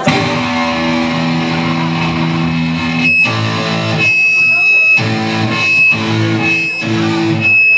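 Amplified guitar chords: one chord rings for about three seconds, then shorter chords are struck about once a second, several carrying a thin high ringing tone.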